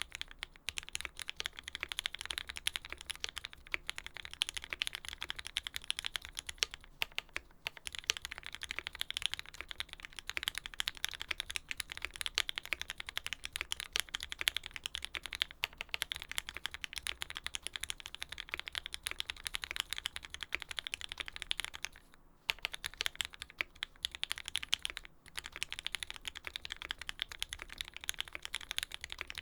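Continuous fast typing on a custom Lyn Special Whale mechanical keyboard with an aluminium plate, lubed Tealios V2 linear switches under Cherry top housings, and GMK keycaps: a dense run of keystroke clacks. The typing stops briefly about seven seconds in, and twice more in the last third.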